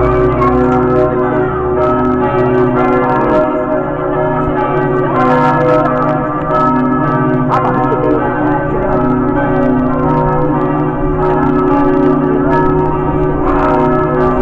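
Several church bells ringing together in a continuous peal, their overlapping tones sustained at an even level throughout. They are rung at 11 o'clock to mark the centenary of the 1914–1918 war's Armistice.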